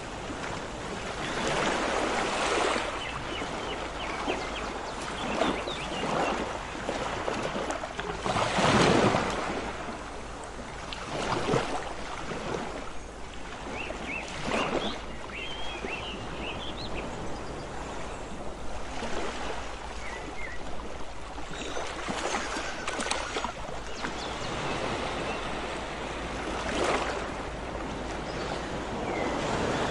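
Sea waves breaking and washing on a beach, the rush swelling and falling every few seconds.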